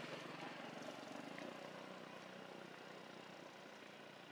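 Faint steady hum of a distant engine running, under quiet outdoor background noise.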